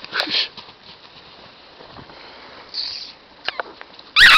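Puppies scuffling at play, soft pattering and rustling, then one short, loud, high-pitched yelp near the end.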